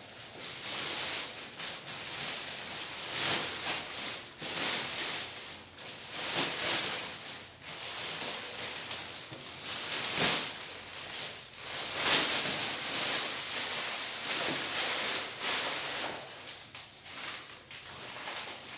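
Large clear plastic bag crinkling and rustling as it is pulled up off a big box and then bunched up, swelling and fading unevenly throughout.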